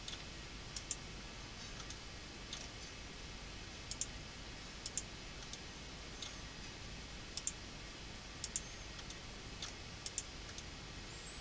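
Computer mouse clicking: about a dozen short, sharp clicks at uneven intervals, several in quick pairs, over a faint steady hiss.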